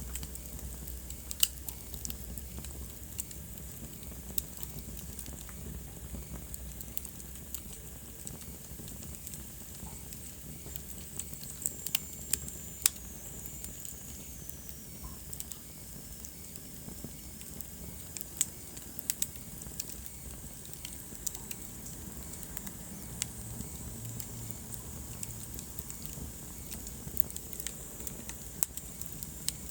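Wood fire burning in a fireplace, crackling with irregular sharp pops over a steady low rumble and hiss. A faint high whistle drifts down in pitch about twelve seconds in.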